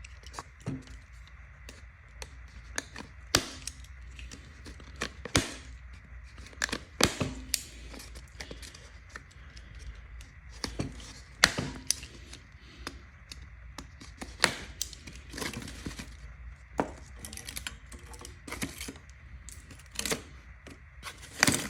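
Craft knife cutting plastic zip ties and packaging: irregular sharp snaps and clicks, a few louder ones, with short bursts of rustling and tearing.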